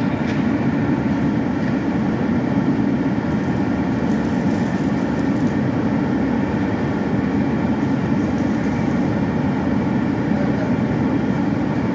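Steady, loud, low rumble of running machinery, unchanging throughout, with a faint steady hum above it.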